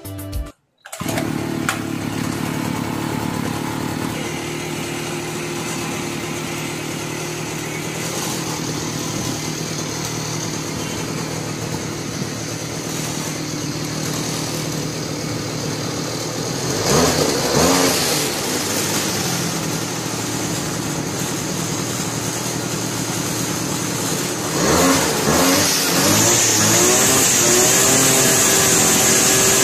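Two-stroke brush cutter engine running steadily at idle. It is revved up and back down twice, then held at high revs near the end.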